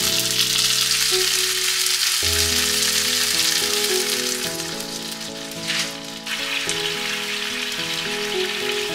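Chicken thighs and onion frying in olive oil in a frying pan: a steady sizzle, with a short louder hiss about six seconds in, after which the sizzle is softer. Light background music plays throughout.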